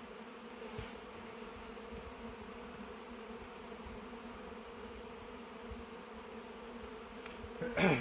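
Honey bees buzzing around an opened hive: a steady hum of many wingbeats. Near the end a louder buzz sweeps close by, dropping in pitch.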